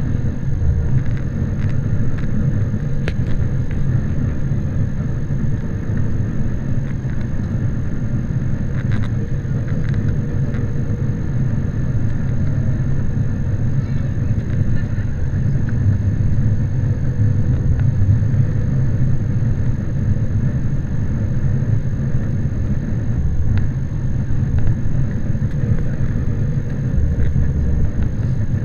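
Airliner cabin noise heard at a window seat: the jet engines and the airflow over the fuselage and extended flaps make a steady, even rumble during the descent on approach, with a faint steady hum above it.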